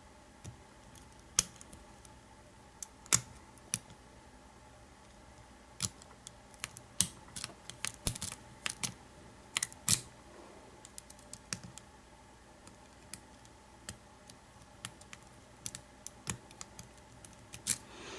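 Irregular small metallic clicks and ticks of a hook pick working the pin stack of an American 700 series padlock, against a pry-bar tension tool in the keyway. The clicks come in an uneven scatter, thickest in the middle.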